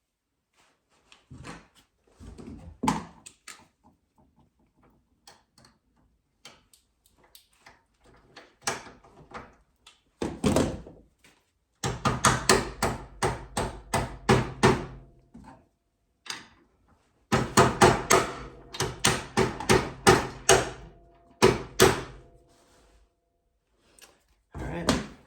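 Metal parts and hand tools knocking and clicking while a snowbike footpeg mount is worked on: scattered thunks, then two runs of rapid sharp strikes, about four or five a second, each lasting about three seconds, the second run near the end with a brief ringing tone.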